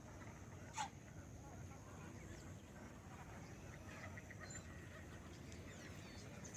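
Faint wetland bird calls, goose-like honks among them, with one sharp, falling call a little under a second in.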